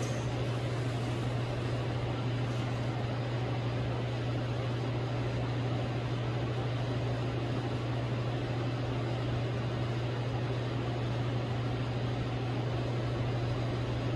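A steady low hum under an even background hiss, unchanging throughout.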